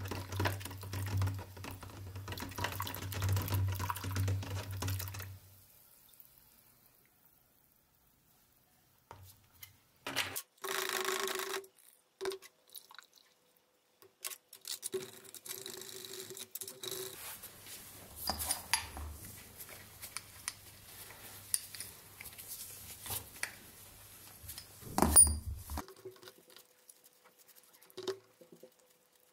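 Water sloshing and splashing as rusty metal vise parts are rinsed by hand in a plastic jar of water. After a pause come scattered clinks and knocks of the wet metal parts being set down on a metal tray and table, with one louder knock late on.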